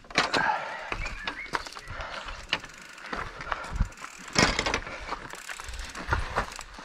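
Mountain bike clattering and rattling over rough trail, with many irregular clicks and knocks and a louder knock about four and a half seconds in.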